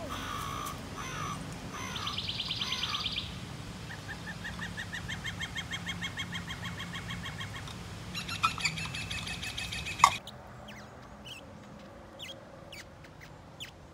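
Recorded bird songs played through the small speaker of a handheld electronic bird-song identifier, several different songs in turn: slurred whistled notes, a fast trill, then a long run of repeated chirps. About ten seconds in there is a sharp click, followed by a few short, faint chirps.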